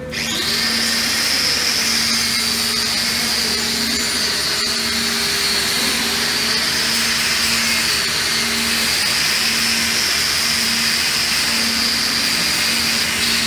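Angle grinder with a wire cup brush spinning up and brushing a stick-welded pipe joint, cleaning the 7018 weld pass: a steady high whine over a loud rasping hiss, cutting off just before the end.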